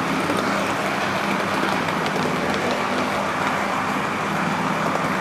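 Steady running noise of an O-scale model train's electric motor and wheels on the track, heard from a camera riding on the train: a low hum under a even rushing noise, with occasional faint clicks.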